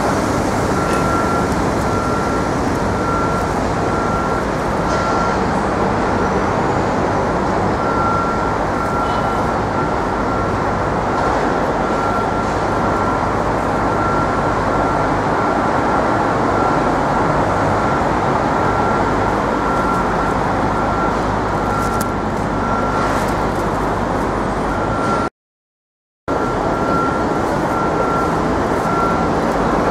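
Steady city traffic and construction-site rumble, with a high electronic beep repeating at an even pace over it. The sound cuts out completely for about a second near the end.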